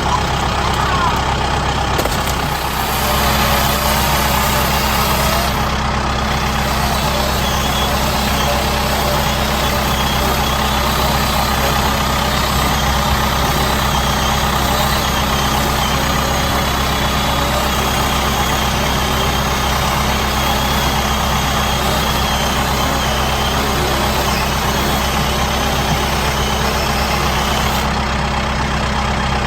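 Kubota M7060D tractor's four-cylinder diesel engine running steadily at a constant speed.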